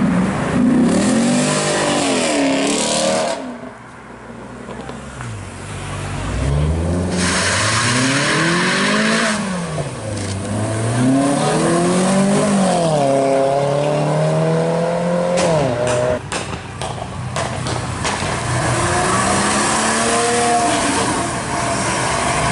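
Cars accelerating hard one after another, engines revving up and dropping back through the gears. The engine pitch climbs and falls several times in a row around the middle.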